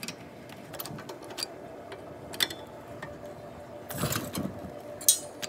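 Scattered metallic clicks and clanks from a repaired hydraulic floor jack and its pump handle being worked, with a short cluster about four seconds in and the sharpest click about five seconds in, over a faint steady hum.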